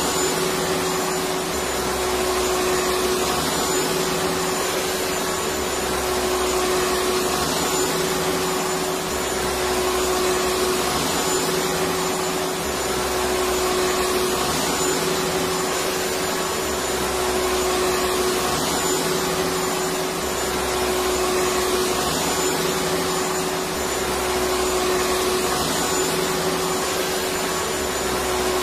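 Electric vacuum cleaner running continuously: a steady rush of air and motor noise with a constant hum and a faint high whine, the low end swelling gently about every four seconds.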